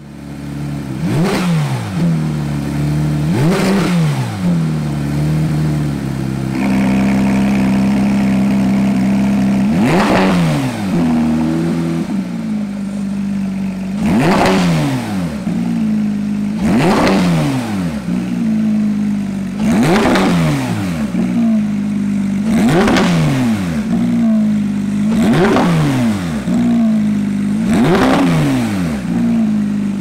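Porsche 991 GT3's naturally aspirated flat-six, breathing through an ARMYTRIX valvetronic exhaust, idling while stationary and blipped in quick free revs that rise sharply and fall back, about nine times, roughly every three seconds. For a few seconds in the first half it is held steady at raised revs.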